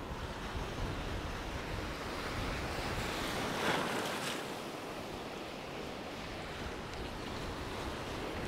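Sea water washing and wind buffeting the microphone, with a burst of splashing about three and a half seconds in as a hooked sea trout thrashes at the surface close in.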